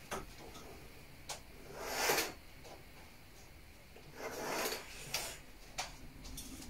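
Faint handling noises in a small room: a few sharp knocks and two short sliding or rustling scrapes that swell and stop, about two seconds in and again near the middle, as things are moved about.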